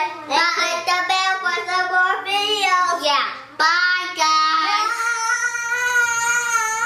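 A young child singing in a high voice with sliding, melodic pitches, then holding one long note from about four seconds in.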